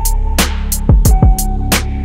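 Background music with a steady drum beat: deep kicks that drop in pitch, crisp hi-hat ticks and a held synth note.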